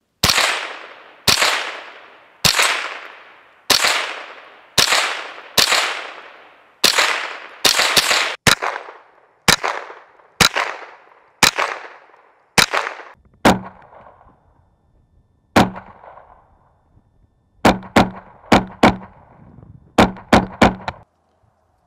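Thompson Center TCR 22 semi-automatic .22 LR rifle firing about two dozen shots, mostly about a second apart, each shot echoing away for a second or so. In the second half the shots have a shorter echo and several come in quick strings of three or four.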